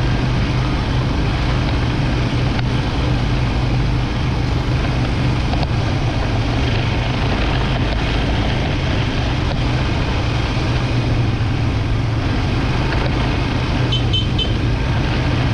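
ATV engine running steadily during a ride, a constant low hum under broad road and wind noise. Three short high beeps sound near the end.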